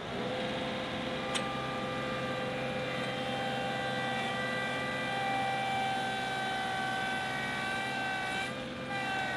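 John Deere 2038R compact tractor, 38 horsepower, running under heavy load as it struggles to pull a two-bottom plow, with a steady high-pitched whine in low gear. The whine rises to pitch in the first moment, holds steady, and wavers briefly near the end.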